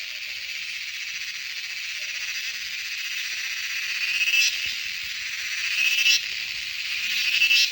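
Dense chorus of calling wild animals, a steady high-pitched buzzing drone, with three louder swells that build and then stop suddenly, about four, six and seven and a half seconds in.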